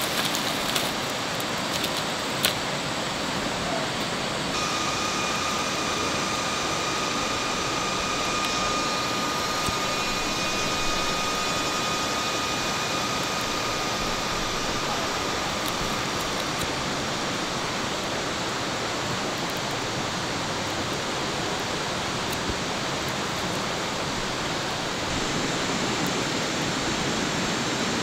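Steady rushing of flowing stream water. A thin, steady high tone joins in about five seconds in and fades out about eleven seconds later.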